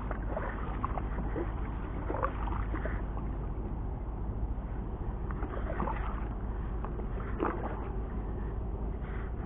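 Water sloshing at the shoreline over a steady low rumble, with scattered brief higher-pitched sounds.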